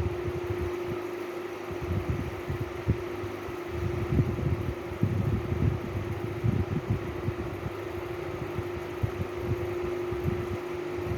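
A steady, fan-like whir with a constant hum running through it, and irregular soft low thumps scattered throughout.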